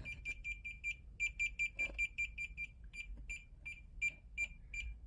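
Fnirsi DMT-99 multimeter in EMI-detection mode beeping: short high beeps of one steady pitch, about seven a second with a brief break about a second in, slowing to about four a second in the second half. The beeping marks a live mains wire in the wall, and its rate climbs as the field grows stronger.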